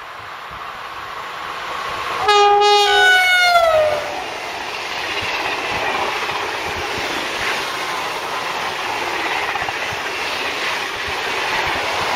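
A TGV high-speed trainset passes at speed. Its rushing noise builds as it approaches, and about two seconds in its horn sounds for about a second and a half, the pitch dropping as the power car goes by. The carriages' rushing and wheel clatter on the rails follows until the end.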